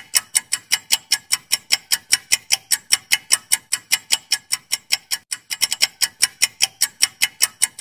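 Quiz countdown-timer clock ticking sound effect: fast, even ticks, about five a second.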